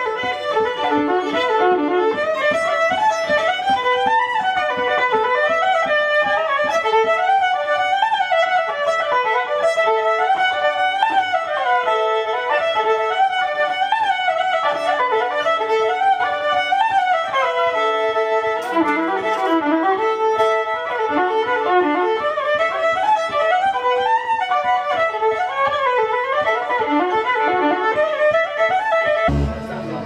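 Electric violin played with a bow in fast runs of notes that climb and fall, over some held lower notes.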